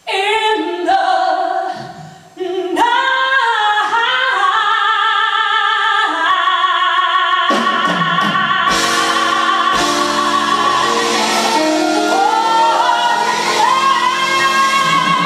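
Female vocalist singing a slow blues with a live swing band behind her. Short sung phrases and a brief drop in level about two seconds in lead to a long held note with wide vibrato, then a slide up into another held note near the end.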